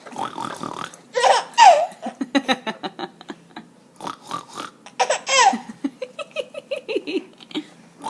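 A baby laughing in repeated fits of short rhythmic laughs and squeals, set off by an adult's pig-like oinking noises. The cycle of noise, then laughter, comes twice.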